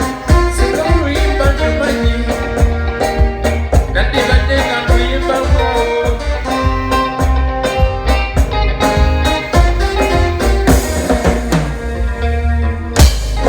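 A live band playing a song with drum kit, bass and guitar: a steady beat over a strong bass line.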